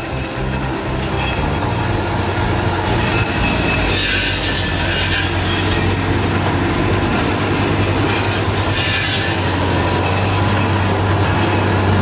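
PGD-400 slab-wood firewood saw running with its chain conveyor, a steady motor hum under the clatter of wood on the conveyor. The saw rasps through slab wood twice: a long cut from about three to five seconds in and a short one around nine seconds in.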